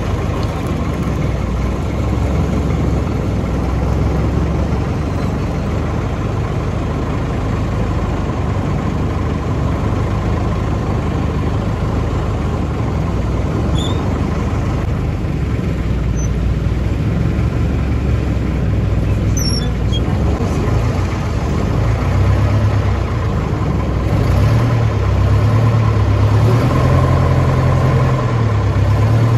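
An engine running steadily under a dense wash of noise, its pitch rising and falling in the last few seconds.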